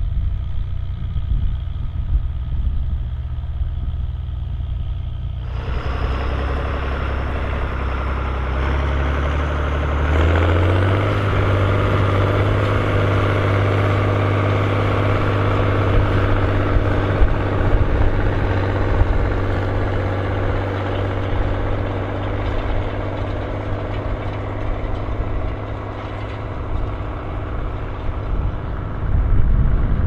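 Large tractor diesel engines working under load: first the Fiat 1500 pulling a four-furrow plough, then, after a cut about five seconds in, a red Fiatagri tractor drawing a spring-tine harrow. The second engine rises in pitch about ten seconds in and then runs steadily under load.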